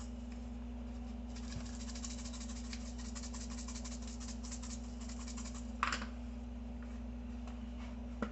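Shaker jar of crushed red pepper flakes rattling as it is shaken over the pizza, a fast dense patter of small clicks for about four seconds, then a single knock about six seconds in.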